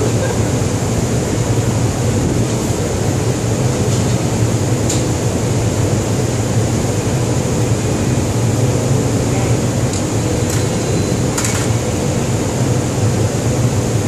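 Steady low hum of a ship's machinery, constant in level, with a few faint clicks.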